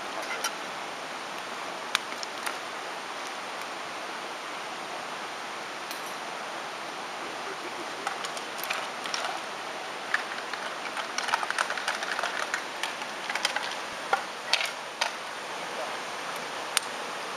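Steady rush of a river flowing over stones, with scattered clicks and bouts of small scraping and rattling as a mess tin is cleaned by hand, busiest in the middle of the stretch.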